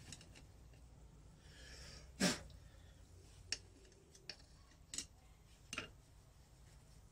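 Quiet bench work on a motorcycle engine's clutch: a few light metallic clicks and taps of hand tools and parts, spaced about a second apart, with one louder short sound a little after two seconds in.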